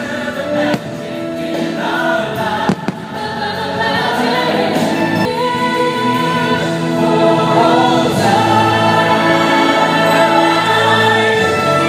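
Choral singing over orchestral music from a holiday fireworks show soundtrack, with long held chords. Two short sharp cracks come about one and three seconds in.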